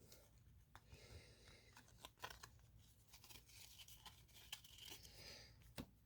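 Faint crinkling and tearing of a trading card pack's foil wrapper as it is opened, with scattered small crackles and clicks.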